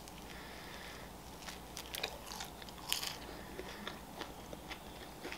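Close-miked eating of pizza: a bite, then chewing with soft crunches of crust, a little louder about two and three seconds in.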